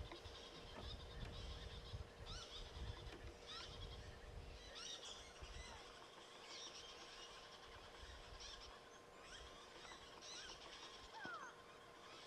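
Wild birds chirping and calling, short repeated whistles and sweeping notes over a faint steady hum. A low rumble runs under the first few seconds and then fades out.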